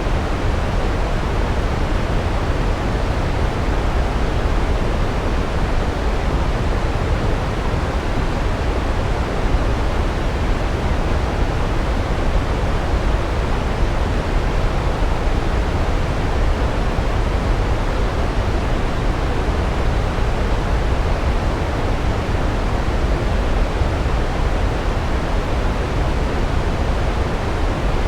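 A big waterfall heard from close: falling water making a steady, unbroken rumble, heaviest in the low end.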